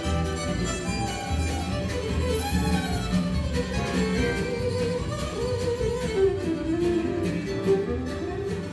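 Live acoustic band music led by a fiddle melody, with acoustic guitar, upright bass and drums underneath.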